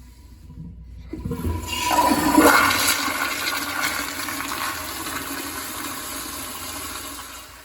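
Toilet flushing: a brief knock about a second in, then a loud rush of water that rises to a peak and settles into a steady, slowly fading flow, dropping away near the end.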